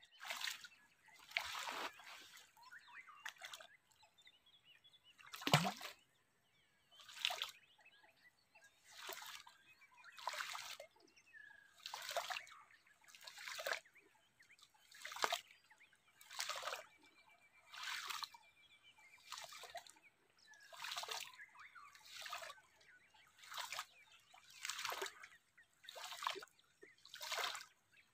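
Water sloshing and splashing in a steady rhythm, one splash about every second and a half, with a heavier splash and a dull thud about five seconds in.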